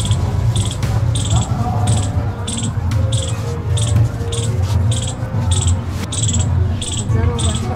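Cricket chirping, about two chirps a second, over a steady low hum.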